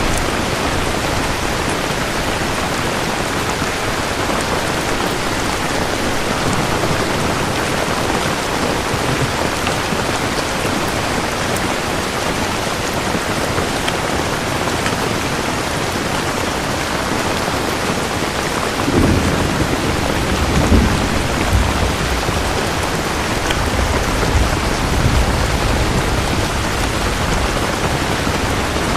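Steady, dense rain falling. About two-thirds of the way through, a low rumble of thunder rolls in and swells a few times under the rain.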